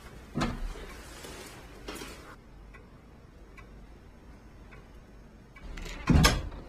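Wall clock ticking slowly in a quiet room, with a knock about half a second in and a loud, heavy thump near the end.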